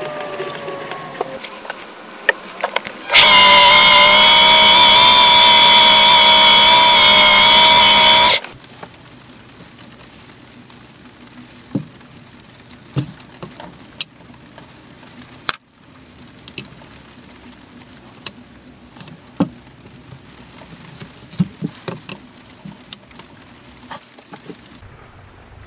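A wood lathe spinning down, its pitch falling. Then a very loud steady tone with many layered pitches, wavering slightly, runs for about five seconds and cuts off abruptly. After it come scattered light clicks as wooden spacer rings and brass washers are handled and set down on a board.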